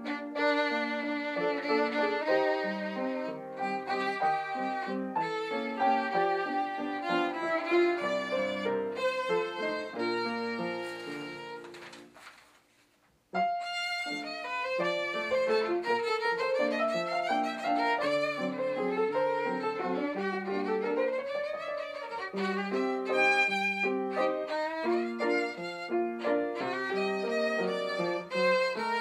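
Background music led by violin, fading out about eleven seconds in and starting again a couple of seconds later.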